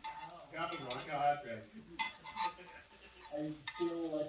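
Chopsticks clicking and scraping against an Iwachu cast iron tamagoyaki pan as a rolled omelet is turned, about five sharp clicks, over a light sizzle. A wavering voice-like sound runs underneath in the background.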